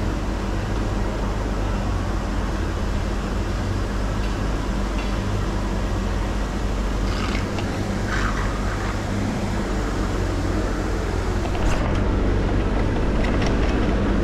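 Pond aerator running: steady churning and splashing of water over a constant low motor hum. A few light clicks near the middle and toward the end.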